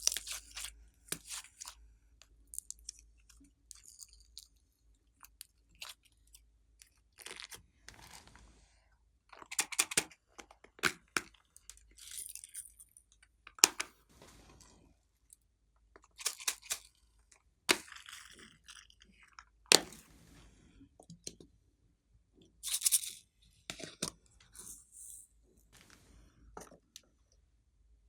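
Glossy slime being squished and worked by hand, giving irregular bursts of sticky crackling and popping clicks, some short and some lasting about a second.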